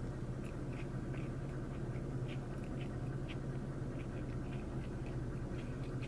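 Close-up chewing of a BLT sandwich: a bite, then scattered small crisp crunches and mouth sounds, over a steady low hum in the closed truck cab.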